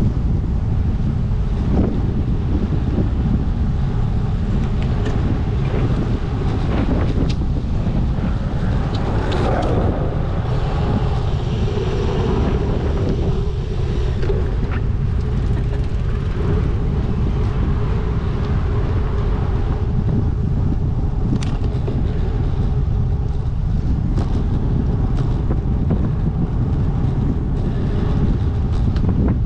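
Wind buffeting the microphone of a camera on a moving bicycle, with road traffic going by.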